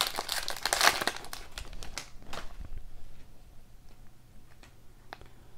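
Foil trading-card pack wrapper crinkling as it is torn open and peeled off the cards. The crinkling dies away after about two seconds, leaving only a few soft ticks.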